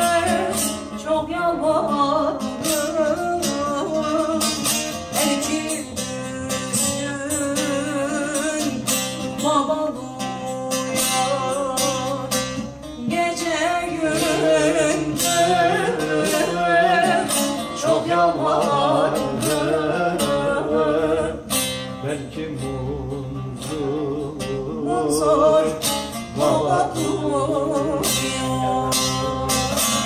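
A woman singing a Turkish folk song in a slow, ornamented, wavering melody, accompanied by a bağlama (long-necked saz) plucked and strummed throughout.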